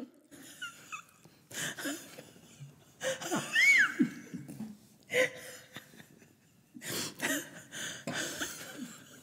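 A woman laughing hard in breathy bursts, with a man laughing along, close to the microphone; a high squealing laugh about three and a half seconds in is the loudest moment.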